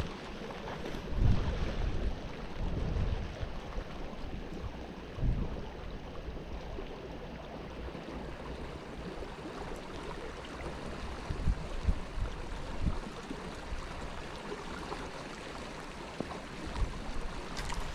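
Wind buffeting the microphone in low gusts, about a second in, around five seconds in and a few more times later, over a steady rush of outdoor noise.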